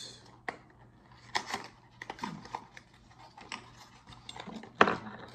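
A small cardboard box being handled and opened by hand: scattered taps, scrapes and rustles of card, with one sharper knock near the end.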